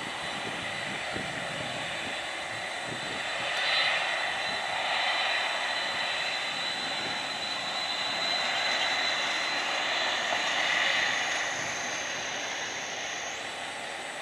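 Jet engines of a taxiing Boeing 747 freighter, a steady rushing noise with a high whine, swelling in loudness twice.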